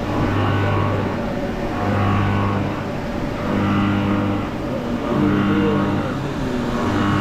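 Jyoti RDX 20 CNC vertical machining center milling under flood coolant. The spindle and cutter run steadily, and the cutting sound swells and eases about every one and a half seconds.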